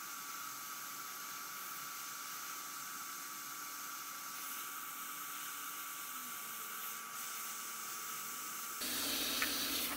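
Hot air rework station blowing a steady hiss of hot air with a thin, steady whine, heating the solder joints of a through-hole button on a circuit board until the solder melts. Near the end the hiss shifts and gets a little louder.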